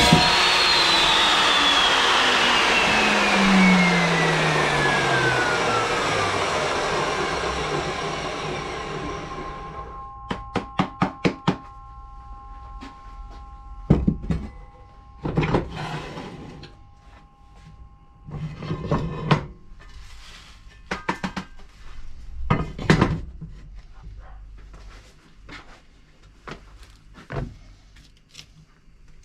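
Evolution metal-cutting chop saw spinning down after a cut, its motor and blade whine falling steadily in pitch and fading away over about ten seconds. Then a quick run of about six clicks, followed by scattered knocks and thunks of steel stock and the saw being handled.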